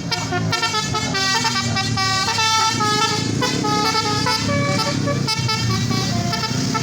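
Tour bus's telolet horn, a multi-tone musical air horn, playing a quick run of short notes that keep changing pitch, with the bus engine rumbling underneath from about halfway.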